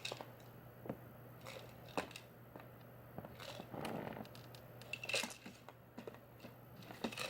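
Scattered light clicks and taps, with a brief rustle midway: a cat batting a wobbling plastic treat-dispenser toy so that treats rattle out.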